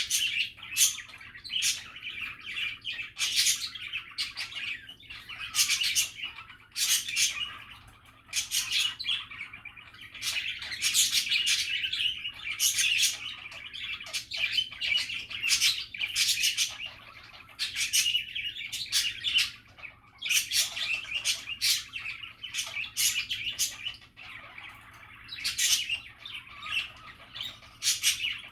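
Pet budgerigars chattering without a break, a constant warbling with frequent short, sharp, high calls over it.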